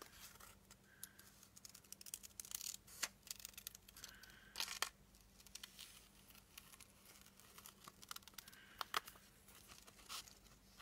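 Scissors snipping through printer paper in faint, irregular short cuts, with light paper rustle, as a small printed image is fussy-cut out by hand.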